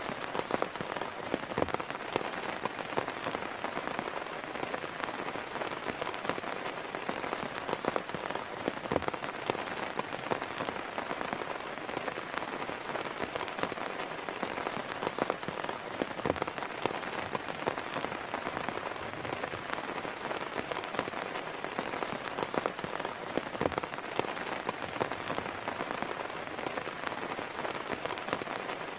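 Heavy rain falling steadily, with many separate drops striking close by and a few louder single hits.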